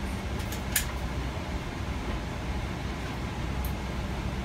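Steady low rumble and hiss inside a Boeing 777-300ER's cabin as the jet is pushed back from the gate, with a sharp click about a second in and a fainter one near the end.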